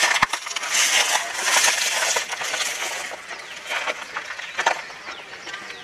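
Many small birds chirping densely, a high-pitched tangle of chirps and clicks. It cuts in suddenly and eases off after a couple of seconds.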